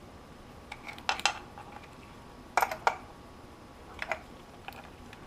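Sharp metallic clinks and taps of hand tools on a dirt bike's rear axle and chain adjuster during chain-tension adjustment, coming in a few scattered pairs with a short ring.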